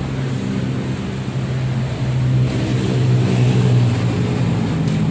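An engine running with a steady hum, a little louder around the middle.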